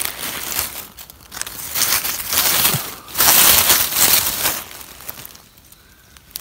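Dry forest leaf litter rustling and crackling in several short bursts, the loudest a little past halfway, fading near the end.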